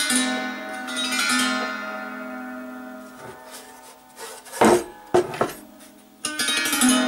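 Homemade wooden gusli (Russian psaltery) strummed across its open strings, the chord ringing and slowly fading; the strings are newly fitted and only pulled up, not yet tuned. About four and a half seconds in, a couple of knocks as the instrument is lifted and handled, then another strum near the end.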